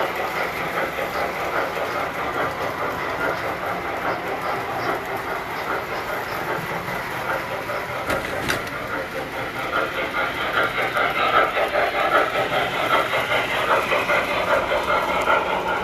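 Tinplate model trains running on metal track: a steady rattling clatter of wheels and motors that grows louder about two-thirds of the way through.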